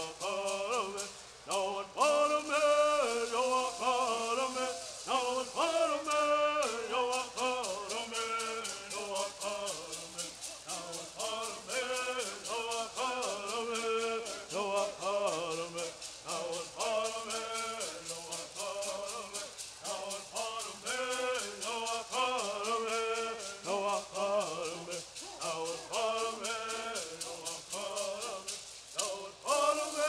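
Southern California Native American bird singing: a group of men singing in unison while shaking gourd rattles. The rattles keep a steady, fast beat through most of the song.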